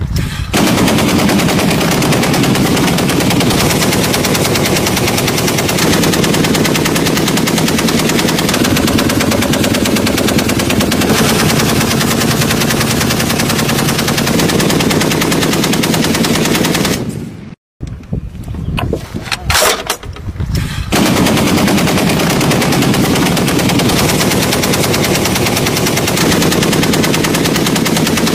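Tripod-mounted heavy machine gun firing long sustained bursts of automatic fire. About two-thirds through, the firing breaks off suddenly, a few separate shots follow, and then sustained fire resumes.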